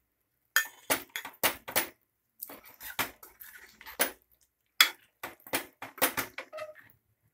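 Steel ladle stirring chicken gravy in an aluminium pressure cooker, clinking and scraping against the pot in a quick string of strokes with short pauses.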